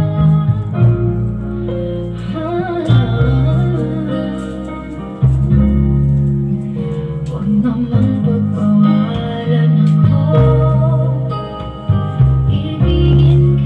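A song with singing, guitar and strong bass notes played through a single-speaker MCV subwoofer box that has no tweeter or mid-high driver.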